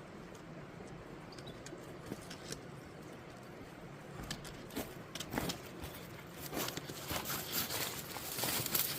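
Dog eating kibble from a bowl: scattered clicks and crunches, growing busier and louder from about halfway through.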